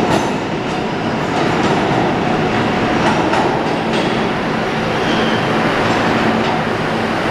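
R188 subway train on the 7 line pulling out and running away into the tunnel, its wheels clicking over the rail joints several times during the first few seconds, with a steady rumble and hum underneath.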